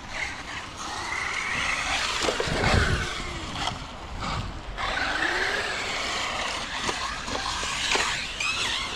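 Electric motor of an Arrma Vorteks 3S RC truck whining up and down in pitch as it accelerates and slows, with a thump about two and a half seconds in.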